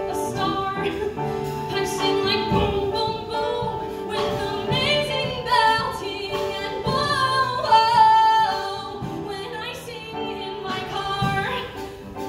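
A woman singing into a microphone with piano accompaniment, rising to a loud held note about eight seconds in.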